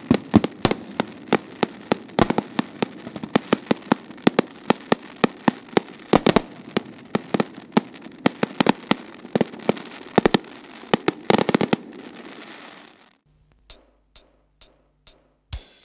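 Aerial fireworks display: a rapid, irregular series of sharp bangs from bursting shells over a continuous crackle. It cuts off suddenly near the end, and a few short, high ticks follow.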